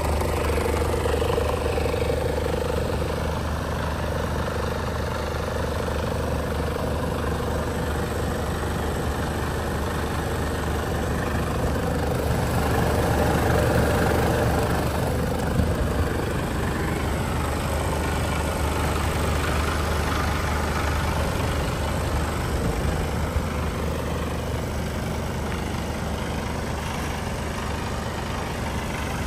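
Mercedes-Benz Actros 1842's straight-six diesel engine idling steadily, a low even hum.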